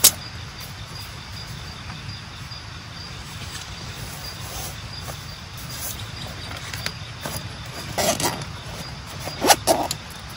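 A sharp knock as a padded pouch is set down on a perforated metal camp table, then clusters of knocks and rustles of camping gear being handled about eight and nine and a half seconds in. Underneath is a steady faint high chirring of insects.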